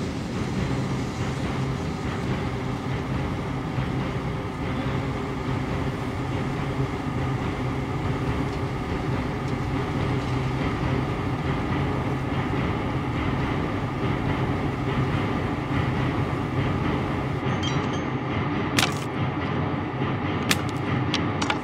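Steady low rumble of a burning gas well blowout. Near the end the sound thins and a few sharp knocks are heard as a wooden box is handled.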